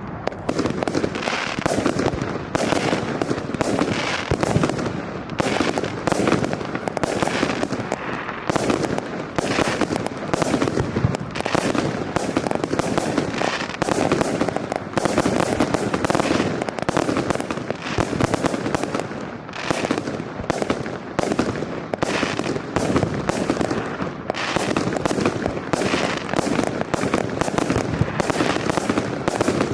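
Module display fireworks cake firing a rapid, unbroken barrage of shots and bursts, several a second.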